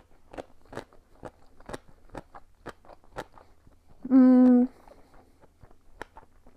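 A person chewing a mouthful of sushi close to a clip-on microphone: sharp, wet crunching clicks about twice a second. About four seconds in comes a short hummed "mm" held on one pitch, the loudest sound, followed by a few softer chewing clicks.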